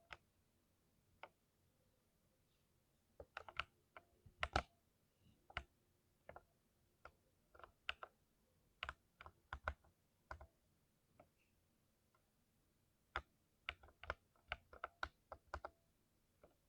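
Typing on a mechanical keyboard: irregular runs of sharp key clicks with short pauses between them, and one longer pause partway through.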